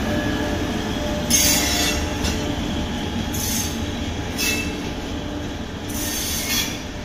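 LHB passenger coaches of an express train rolling past close by at speed, a steady wheel-on-rail rumble. Four short bursts of high-pitched wheel noise come at irregular gaps of one to two seconds as the bogies go by.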